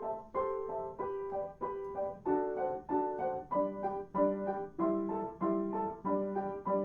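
Instrumental piano music: a light, steady melody of plucked-sounding notes, with lower notes joining about halfway through.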